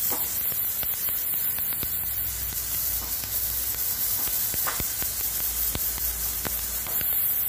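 Pressure washer's narrow high-pressure water jet hissing steadily as it sprays onto wet, algae-covered concrete and into a film of standing water.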